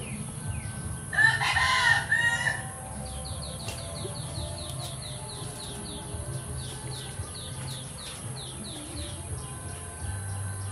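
A rooster crows once, loud, about a second in, followed by a long run of short high bird chirps, about two a second.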